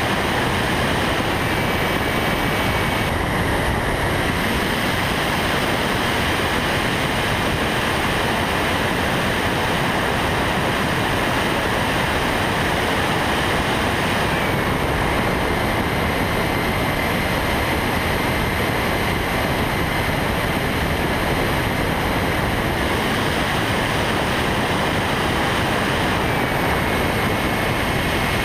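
A radio-controlled model airplane in flight, heard from its onboard camera: a steady rush of wind and propeller noise with a thin motor whine whose pitch steps down a few times.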